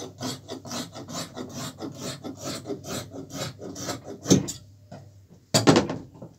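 Fabric scissors cutting through a pajama sleeve in a quick run of crisp snips, about five a second, with a couple of louder knocks near the end.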